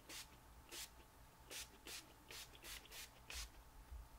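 Heat-protectant pump spray bottle spritzed onto hair, about eight short hissing squirts at uneven intervals, faint.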